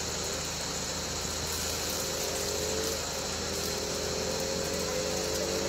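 A vehicle engine running, its pitch rising slowly, dropping back about three seconds in and rising again, over a steady high hiss.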